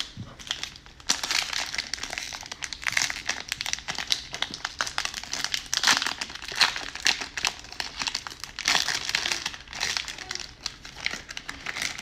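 Plastic cellophane wrapper of a Donruss baseball card cello pack crinkling and crackling as it is handled and opened, starting about a second in.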